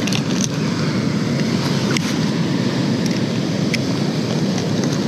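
Steady wash of ocean surf, with wind on the microphone and a few faint ticks on top.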